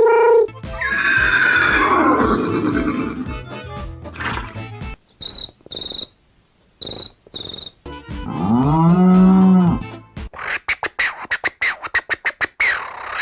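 A series of sound effects made with the human mouth: a long falling rushing sound over a low hum, then four short high beeps, a pitched tone that rises and falls, and finally a fast run of clicks.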